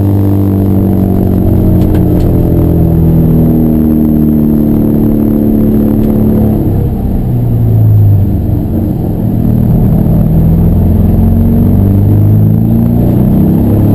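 Racing car engine running hard at high revs; its note falls away about six seconds in, breaks up briefly, then climbs again as the car accelerates.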